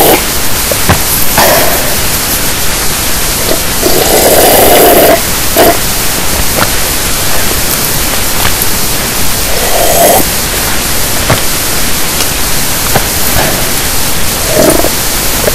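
Loud, steady static hiss, broken three times by a muffled burst lasting up to about a second, with scattered short clicks.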